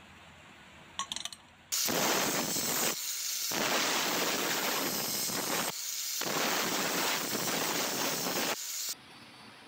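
Angle grinder with a thin cutoff disc cutting through steel plate: a loud, harsh hiss that starts about two seconds in, eases briefly twice, and stops abruptly near the end. A few light clicks come about a second in.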